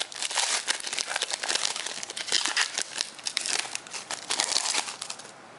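Trading-card pack wrapper crinkling and crumpling in the hand, a dense run of crackles that stops about five seconds in.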